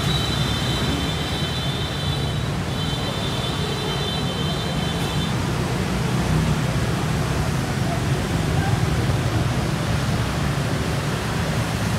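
Steady street traffic noise, with a high steady whine through the first five seconds, broken briefly partway.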